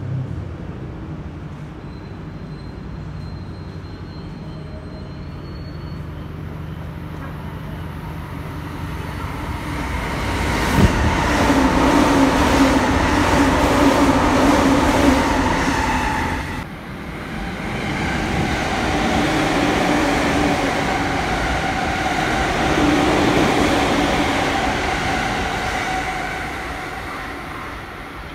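JR E261-series limited express Saphir Odoriko passing straight through a station. The rushing rail noise, with a steady tone running through it, builds from about eight seconds in and is loudest as the cars go by. It dips sharply for a moment about halfway, swells again, then fades away as the train leaves.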